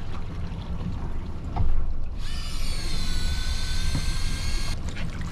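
Electric fishing reel's motor whining as it winds in line: a high-pitched whine that starts about two seconds in, holds steady for about two and a half seconds and cuts off suddenly. A low steady rumble of wind and the boat runs underneath.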